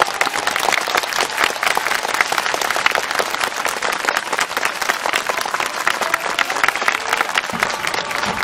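Large stadium crowd applauding, many hands clapping in a dense, steady patter right after the farewell speech's closing thanks.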